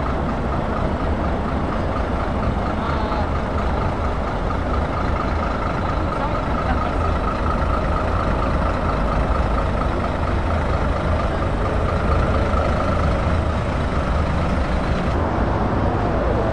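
Heavy diesel trucks moving off in a slow convoy: a Scania 560S Super tractor unit pulls past close by, followed by a DAF XF, their engines making a steady, deep rumble.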